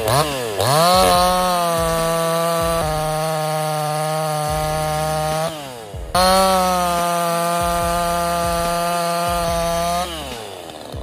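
Craftsman S205 46 cc two-stroke gas chainsaw revved in a few quick blips, then held at full throttle for about four seconds. It drops off briefly and is held at full throttle again for about four seconds before winding down near the end.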